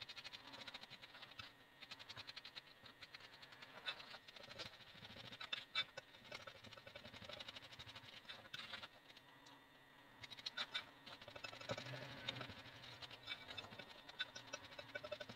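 Fingertips rubbing butter into flour and sugar in a glass mixing bowl: a faint, dense scratchy crackle, with a brief lull about nine seconds in.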